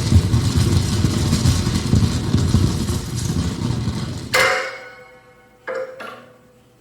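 Dense rumbling noise from a live experimental performance stops abruptly about four seconds in. A struck object then rings out with several pitched overtones and dies away, and is hit twice more in quick succession near the end.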